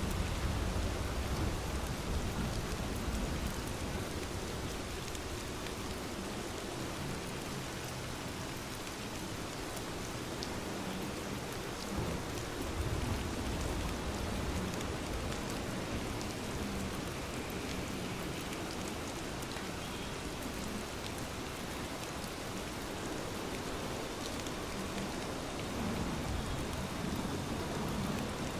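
Steady rain falling, with scattered drop ticks over a continuous hiss and low rumbling swells a couple of times.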